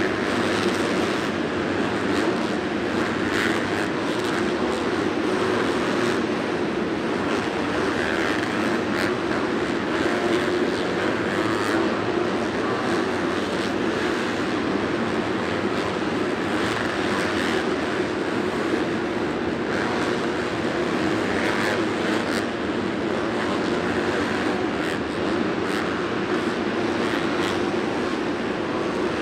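Several motocross bikes riding a supercross track at once, their engines blending into one steady drone.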